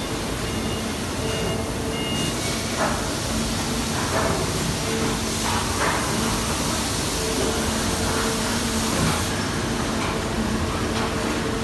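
Nylon cable-tie injection moulding machines running together: a steady mechanical hum over a constant hiss, with a few short hisses now and then.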